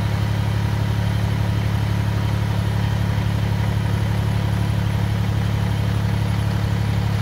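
Kubota BX compact tractor's three-cylinder diesel engine idling steadily.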